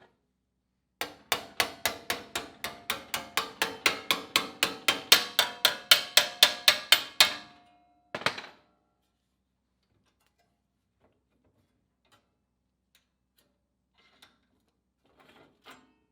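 Hammer blows on sheet steel over a dolly, about four ringing strikes a second for some six seconds and growing louder, then a single further blow: hand-forming a flange on a new headlamp panel.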